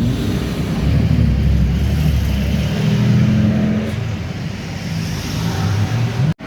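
Classic sports car engines passing one after another, accelerating and revving in a convoy. The sound drops out abruptly for an instant near the end.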